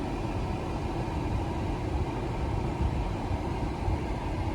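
Steady rumble of a car on the move, road and engine noise with no distinct events.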